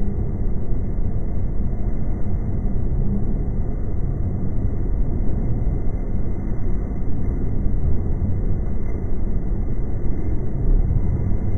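Tsukuba Express commuter train running, heard from inside the carriage as a steady low rumble of wheels and motors.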